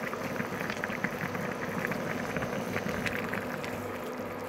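Fish curry simmering in a steel pan, its gravy bubbling with a dense run of small pops and crackles that thin out after about three seconds, over a low steady hum.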